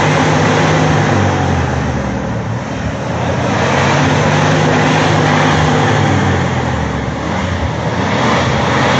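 Jeep Wrangler TJ's engine running under load off-road, easing off briefly twice and picking up again.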